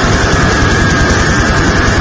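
Harsh noise music: a loud, dense wall of distorted noise with a rapid pulsing low end and a steady, slightly falling high whine like feedback.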